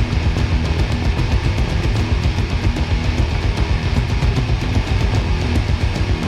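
Loud, guitar-driven death metal recording with regular sharp drum-like hits.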